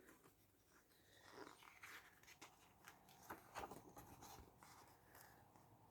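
Faint rustling and light clicks of paper and card being handled, the loudest about halfway through, with near silence around them.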